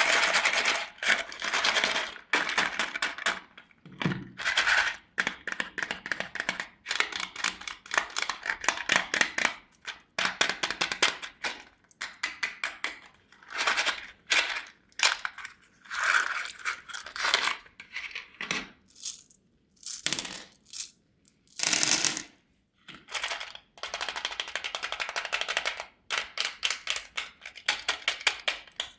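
Shiny candy wrappers and hard candies being handled, a rapid crackling in bursts with short pauses between them.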